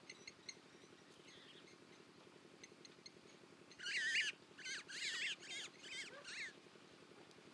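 A bird calling: a few faint chirps at first, then a loud burst of wavering, warbling calls about four seconds in, followed by four or five shorter calls over the next two seconds, over a steady low background hum.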